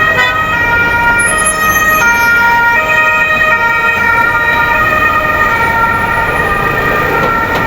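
Several emergency-vehicle sirens sounding together in traffic, steady tones that change pitch in steps, over road noise.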